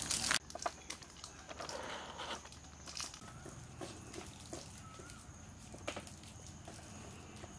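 Crinkling and rustling of KitKat wrappers as the foil-and-paper inner wrappers are peeled off the chocolate bars. A louder crinkle cuts off about half a second in, and faint scattered crackles follow.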